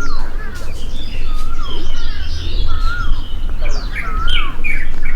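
Several songbirds singing and chirping, with one whistled phrase swooping up and down and repeated every second or so, over a steady low rumble.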